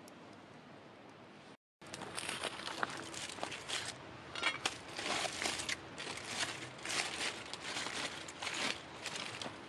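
Aluminium foil crinkling as hands unwrap a foil-wrapped packet, a dense run of irregular crackles starting about two seconds in.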